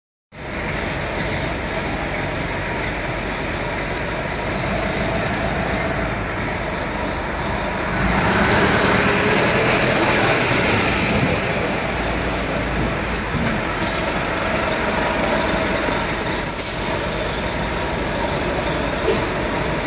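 Road traffic and engine noise heard from high up on a moving bus, steady and getting louder about eight seconds in, with a brief high squeal about sixteen seconds in.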